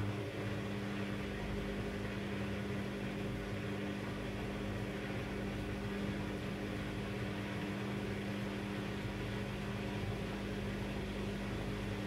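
Front-loading washing machine running with a steady, even hum.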